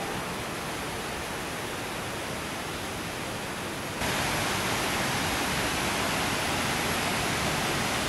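Steady rushing of a waterfall, an even hiss without any pitch, which gets louder about halfway through.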